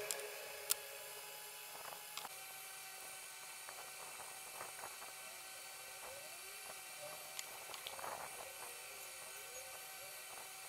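Faint steady electrical hum and hiss with scattered soft clicks and taps as a hot glue gun and small electronic parts are handled.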